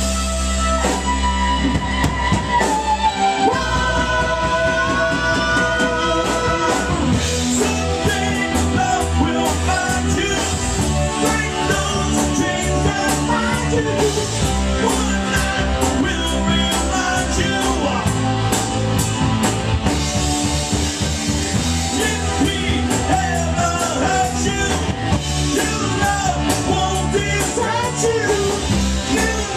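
Rock song playing, with a singer over drums, bass and electric guitar.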